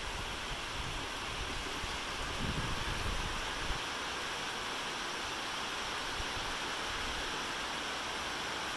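Steady rain falling, an even hiss. Low gusty rumbles of wind on the microphone come through in the first few seconds, then die away.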